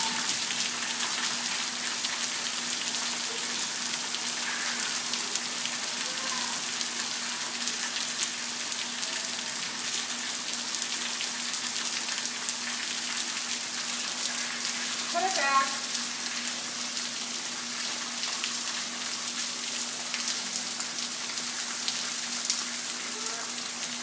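Steady rain falling, an even dense patter full of fine drop ticks, over a faint steady low hum. A brief wavering pitched sound stands out about fifteen seconds in.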